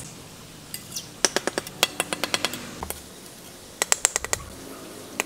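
A steel bricklaying trowel tapping clay bricks to bed them into the mortar: two quick runs of sharp clinks, the first about a second in and the second near four seconds, with a last tap near the end.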